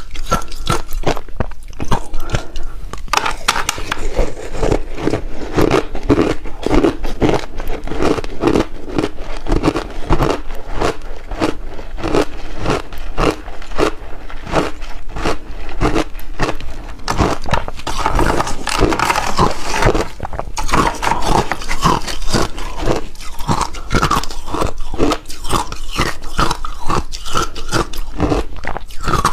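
Close-miked crunching and chewing of refrozen shaved ice chunks, a steady run of rapid crunches.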